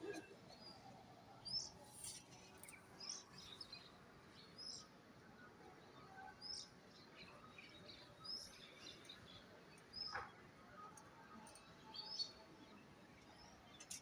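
Faint bird chirps, short high calls scattered about once a second over a quiet outdoor background, with one short sharp click about ten seconds in.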